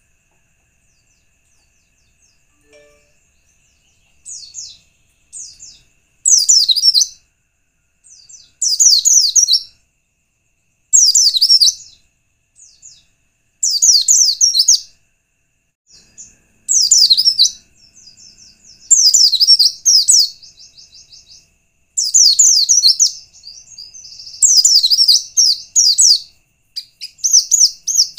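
White-eye (pleci) song: bursts of rapid, high-pitched twittering notes, each about a second long, repeated every two to three seconds after a few nearly quiet seconds at the start. It is a lure call meant to set other pleci singing.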